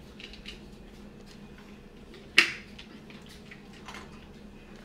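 Someone drinking from a plastic shaker bottle: faint small clicks of sipping and swallowing, and one short sharp sound about two and a half seconds in.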